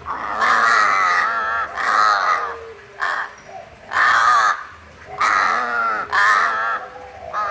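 Crow cawing repeatedly: a series of six or seven loud, harsh caws, each about half a second long, coming roughly once a second.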